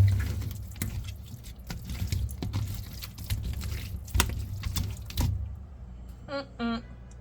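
Wet squishing and clicking of raw chicken wings being tossed by hand in seasoning, stopping about five seconds in. Near the end come four short pitched sounds.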